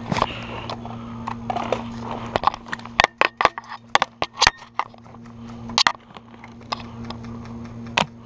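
Airsoft guns firing: a scatter of sharp, clicky shots, about a dozen between two and six seconds in, the loudest near three and four and a half seconds, over a steady low hum.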